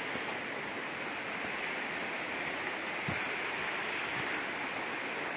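Steady rush of stream water, with one soft thump about three seconds in.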